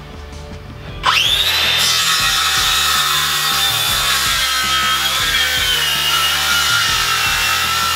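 Circular saw starting up about a second in and cutting through several tongue-and-groove wooden floorboards at once, a steady whine that drops slightly in pitch as the blade works through the wood.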